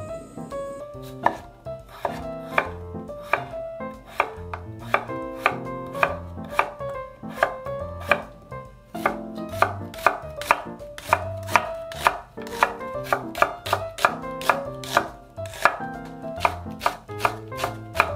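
A chef's knife slicing an onion and then a Korean green onion (daepa) on a wooden cutting board. The blade knocks on the board in a steady run at about two to three cuts a second, starting about a second in.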